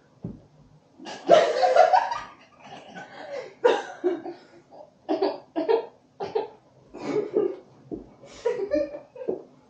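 Young women laughing in repeated bouts: a loud burst of laughter about a second in, then shorter fits of giggling and chuckling. A faint steady hum runs underneath.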